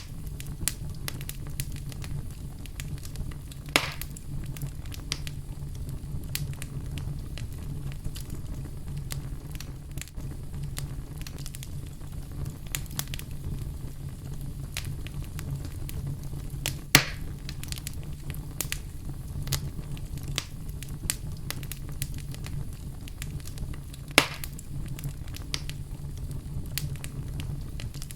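Wood fire burning in a fireplace: a steady low rumble of flame with constant small crackles and three louder sharp pops, about 4, 17 and 24 seconds in.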